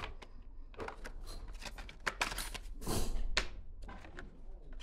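Irregular clicks, taps and knocks of small parts and tools being handled at a workbench, with a louder rustling scrape about three seconds in.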